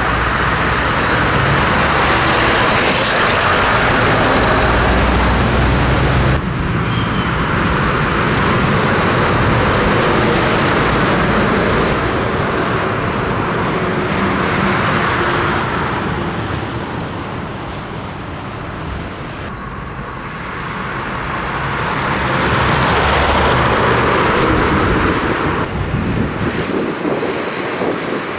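Scania heavy vehicle's diesel engine running under way, with steady road and tyre noise. The sound dips in level around the middle and rises again, and it changes abruptly twice, about six seconds in and near the end.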